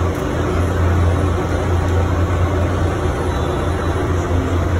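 Steady low machine drone of a food truck's running equipment, a constant deep hum under an even noise.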